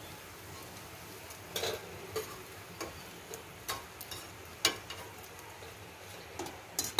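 Hot cooking oil sizzling faintly in a steel pan as fried bread pieces are lifted out with a slotted steel spoon, with several sharp taps and clicks of the spoon against the pan.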